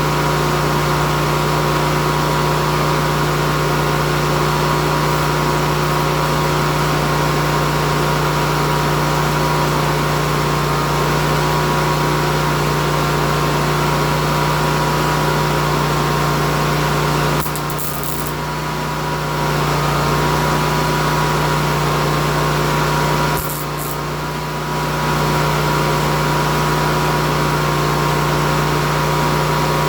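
A machine running with a steady hum, easing off briefly twice, about 18 and 24 seconds in.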